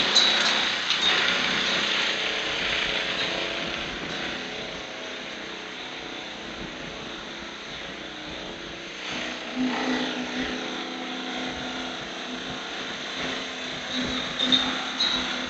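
Construction machinery running steadily during a concrete pour: an engine hum with a hiss of noise over it, loudest at the start and easing off after a few seconds.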